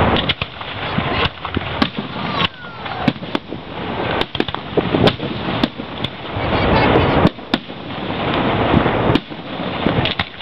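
Aerial firework shells bursting: a dozen or more sharp bangs at irregular intervals over a continuous noisy background.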